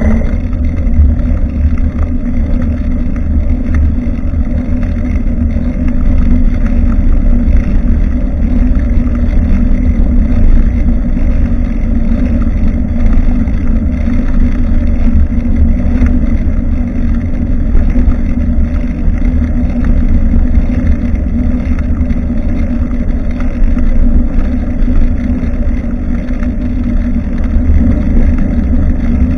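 Steady wind buffeting and road rumble on a bicycle-mounted action camera's microphone while riding, heavy in the low end and unbroken throughout.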